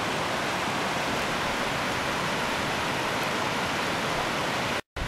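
Steady rushing of a creek spilling over low sandstone ledges, with a very short dropout just before the end.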